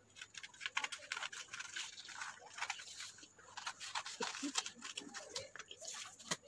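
Scissors cutting through a sheet of craft paper, with the paper rustling and crackling as it is handled: a run of quick, irregular snips and crinkles, with a sharper click near the end.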